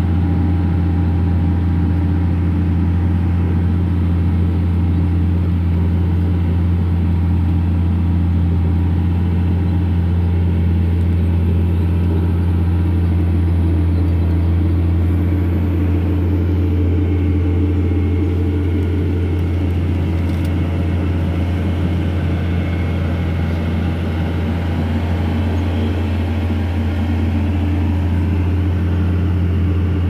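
Case IH Steiger 500 tractor's diesel engine running at a steady working speed while pulling a field cultivator, heard from inside the cab as a steady low drone.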